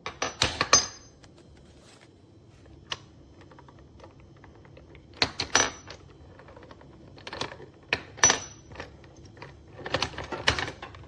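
Metal photography super clamp being handled: clusters of sharp metallic clicks and clanks, some with a brief ring.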